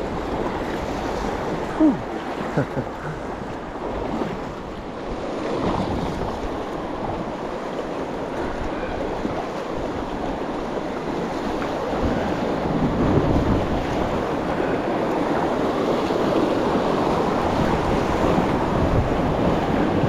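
Whitewater rapids rushing steadily, with wind buffeting the microphone. A few brief knocks come about two seconds in.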